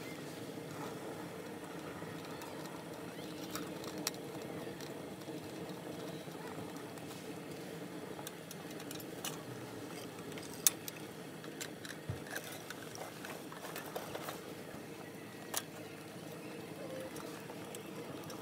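Scattered small metal clicks and clinks as a hurricane lantern is handled and set into a steel wire lantern cage, over a steady low hum.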